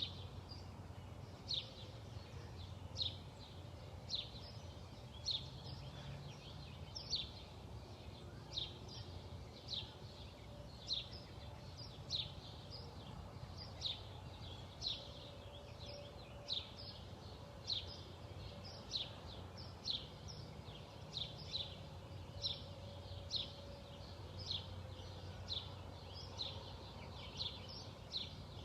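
A small bird giving short, high chirps, about one a second, over a low steady hum.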